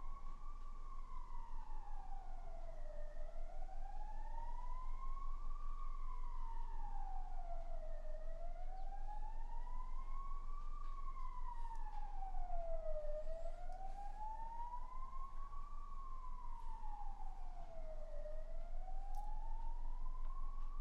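An emergency vehicle siren wailing, its pitch slowly rising and falling about once every five seconds, with a few faint clicks.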